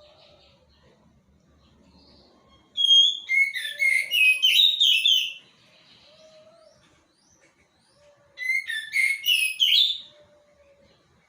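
A songbird singing in two loud bursts of rapid, falling whistled notes, one starting about three seconds in and one near the end, with quiet between.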